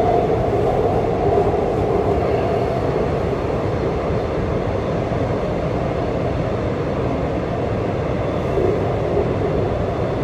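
Subway train running through a tunnel, heard from inside the car: a steady rumble of the moving train.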